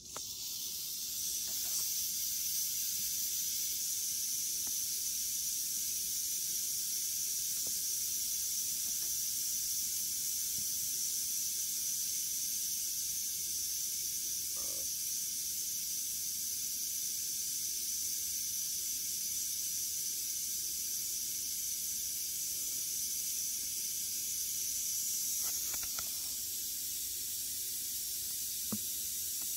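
Western diamondback rattlesnake rattling its tail: a steady, continuous high buzz that starts suddenly and keeps going, easing slightly near the end.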